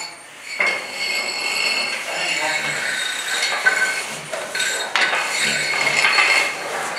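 Metal clinks and knocks of firefighters' hand tools and air-pack gear as they crawl across a concrete floor, with a steady high tone underneath.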